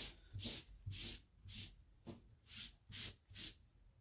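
A wet wipe rubbed back and forth over a silkscreen stencil transfer, about two rubbing strokes a second, cleaning off white chalk paste.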